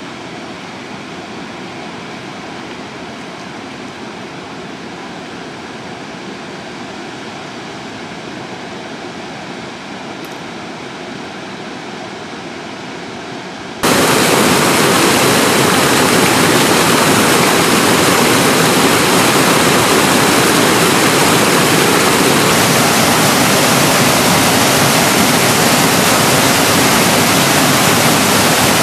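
Rushing water from waterfalls, a steady softer rush at first; about halfway through it jumps suddenly to a much louder, brighter, close-up rush of water pouring over small cascades, which then holds steady.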